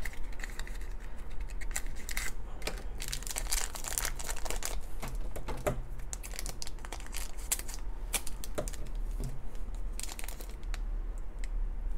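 Crinkling and tearing of a small, shiny purple plastic blind-bag wrapper as it is handled and pulled open by hand: a run of irregular crackles throughout.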